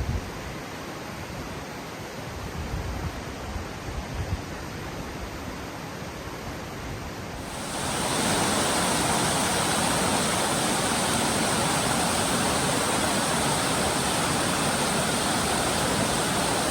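Rushing river water, a steady even roar. It steps up abruptly about seven and a half seconds in to a louder, fuller rush; before that it is a quieter steady hiss with a few low thumps.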